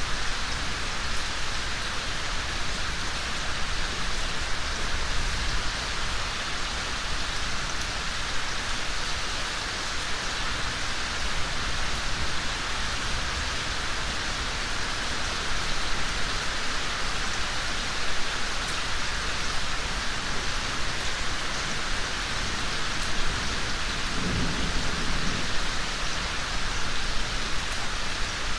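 Steady rain falling, an even hiss of many drops, with a brief low rumble about three-quarters of the way through.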